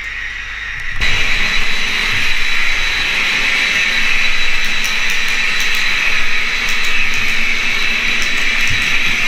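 N-scale Hobbytrain BR 112 model electric locomotive running along the track with its train, a steady whirring of motor and wheels that starts about a second in.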